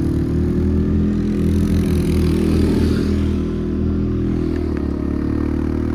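ATV engine running steadily while riding, pulling a little harder about a second and a half in and easing off again past the middle.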